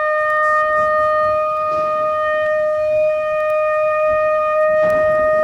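Shofar sounding one long, steady blast held on a single pitch.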